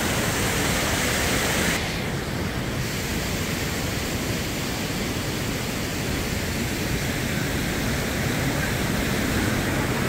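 Floodwater rushing through the wooden chutes of an old mill weir: a steady rushing noise without a break. It loses some of its hiss about two seconds in.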